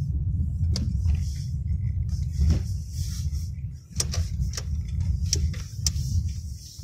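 Car interior noise while driving slowly on a snowy, slushy road: a steady low engine and road rumble with a hiss from the tyres. Several sharp clicks or knocks come through, mostly in the second half.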